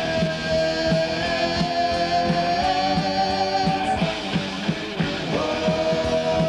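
Heavy metal band playing: electric guitars and a long held high note over a steady drum beat, the note dipping and rising back about five seconds in.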